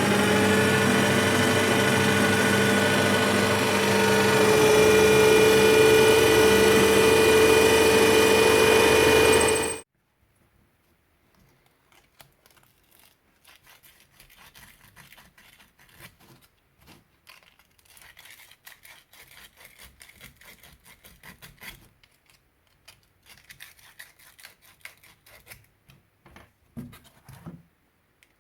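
Electric woodworking machine motor running steadily with a held hum and whine, then switched off and winding down abruptly about ten seconds in. After it come faint, scattered clicks and scraping of parts being handled.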